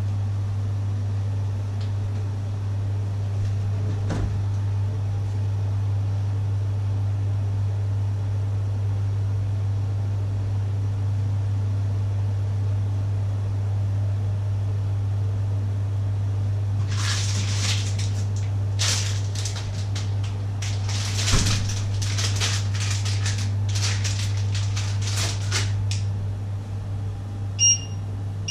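A kitchen appliance hums steadily on one low note and stops at the very end, just after two short electronic beeps. In the second half there are irregular bursts of rustling noise.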